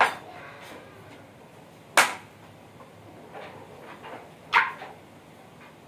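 Three sharp knocks or cracks, about two seconds apart, each dying away quickly.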